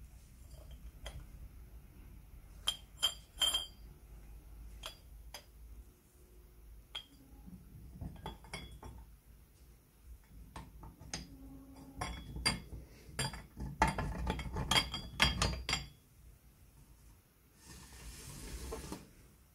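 Metal parts of an antique cast-iron crepe iron clicking and clinking as they are fitted together by hand, the brass rollers going into the iron frame. Scattered sharp clicks at first, then a busier run of knocks and clinks in the second half, and a short rubbing hiss near the end.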